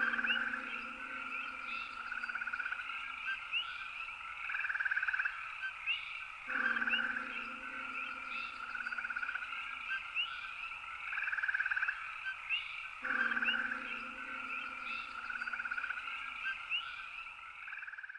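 A night chorus of animal calls, frog-like: repeated trills about a second long every few seconds, with short high chirps between them. A low steady hum underneath drops out twice and comes back each time.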